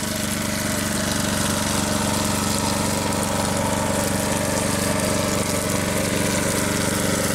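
A steady engine-like drone with a constant hiss over it.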